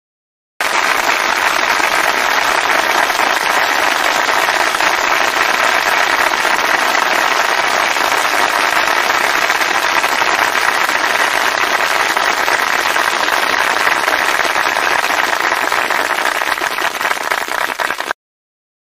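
Loud, sustained crowd applause, a dense even clapping that starts abruptly just after the start and is cut off suddenly near the end.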